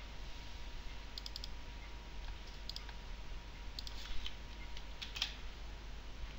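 Computer keyboard and mouse clicking in several short clusters a second or so apart, with a faint steady hiss and low hum underneath.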